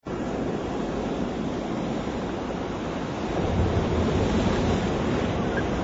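Ocean surf washing onto the shore with wind on the microphone: a steady rushing noise that grows a little louder about halfway through.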